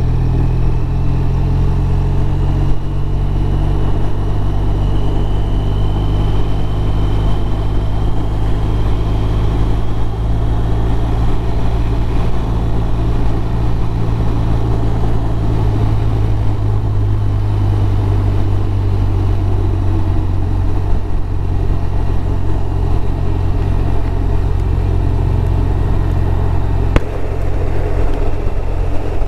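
BMW R1200RT's flat-twin boxer engine running steadily under way, heard from the rider's seat with wind and road noise; the engine note shifts in pitch about halfway through. A faint high whine rises slowly over the first third, and there is a single sharp click near the end.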